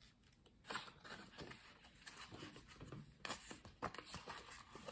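Faint rustling and a few soft taps of paper pages being turned and handled in a picture book.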